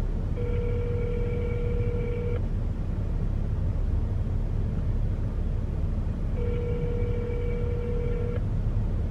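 Telephone ringback tone heard through the phone's earpiece: two steady two-second rings about four seconds apart, the called line ringing with no answer yet. A steady low rumble inside the car runs underneath.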